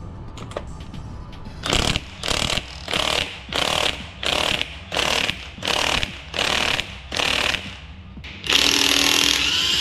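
Cordless DeWalt impact wrench hammering on a tight cylinder-head bolt of a Honda K24A engine in short trigger bursts, about two a second, then one longer continuous run near the end as the bolt is worked loose.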